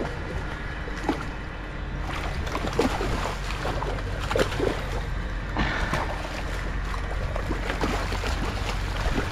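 A hooked fish thrashing and splashing at the water's surface, a scatter of short sharp splashes over a steady low rumble.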